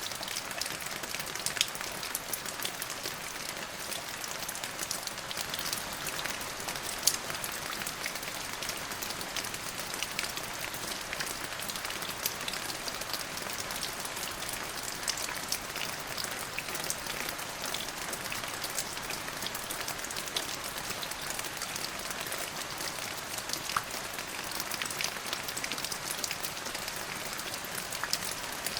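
Steady rain falling, with many close drops pattering on a surface.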